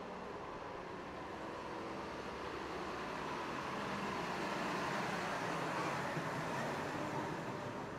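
A car passing by on the street: its road noise swells to a peak about five or six seconds in, then fades.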